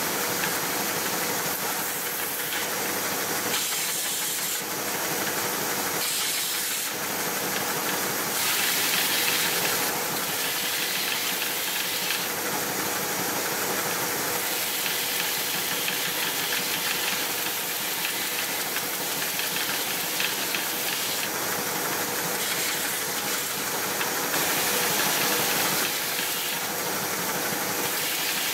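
Belt sander running, with a steady tone under a constant hiss, as small pieces of reclaimed ash are pressed against the moving sanding belt. The sanding hiss swells and eases every few seconds as the wood is pressed on and lifted off.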